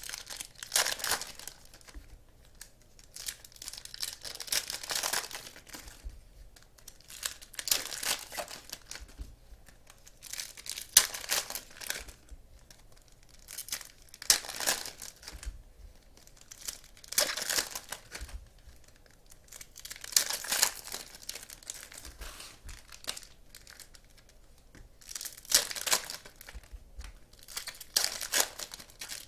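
Trading card pack wrappers being torn open and crinkled, in short bursts about every three seconds as one pack after another is opened.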